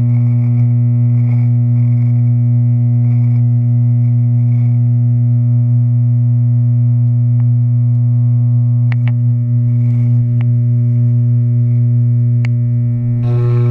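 Wahl electric hair clippers running, a steady low buzz at one unchanging pitch, with a few sharp clicks in the second half and a rougher hiss added near the end.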